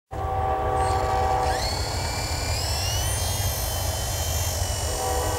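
Electric motor whine of a Blade mSR micro RC helicopter rising in pitch as it spools up about a second and a half in. It then holds a high steady whine that shifts in pitch as the helicopter lifts off and flies, over a low steady rumble.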